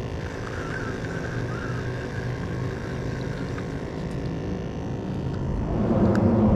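A steady engine drone with a low, humming pitch, growing louder near the end as it comes closer.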